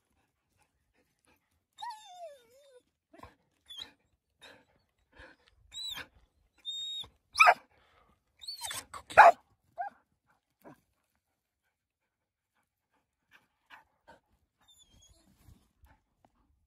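Dogs yelping and barking during a dog–wolf fight, in scattered short calls. A falling whine comes about two seconds in, then short high yelps, with the loudest barks at about seven and a half and nine seconds.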